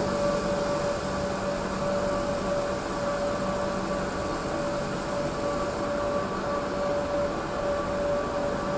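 Automatic train-wash machinery running: rotating brushes scrubbing the train's body, heard as a steady rushing noise with a constant mechanical whine and a low hum.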